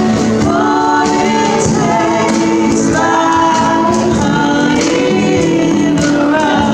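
Live worship song: several women singing together into microphones, accompanied by two acoustic guitars.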